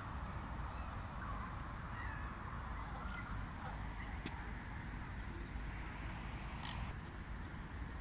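Scattered short, faint bird calls from a flock of waterfowl and park birds, over a steady low rumble; one call near the end is louder.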